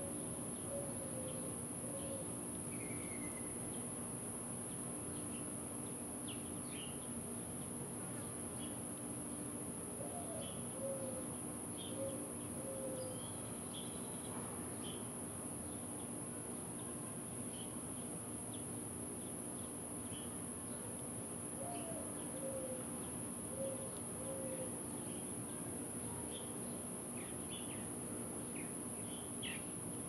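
Insects drone steadily at a high pitch while birds call: a low call of a rising note followed by a few falling notes comes three times about ten seconds apart, with scattered short higher chirps between.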